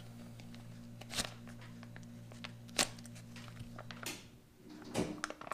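A sharp folding knife slicing open a foil retort pouch of steak and vegetables, with a few short crisp clicks and crinkles. A steady low hum underneath stops about four seconds in.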